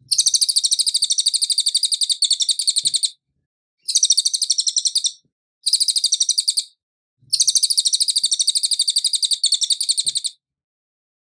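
Cililin bird singing: four bursts of a fast, high-pitched trill of rapidly repeated notes, with short pauses between them. The first and last bursts are the longest, about three seconds each.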